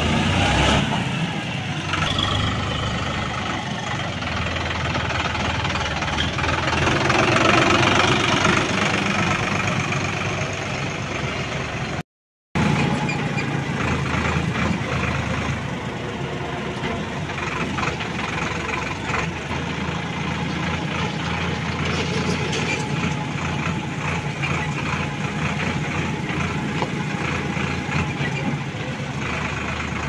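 Sonalika 47 tractor's diesel engine running steadily as the tractor drives, heard close up from on board, with a short break in the sound about twelve seconds in.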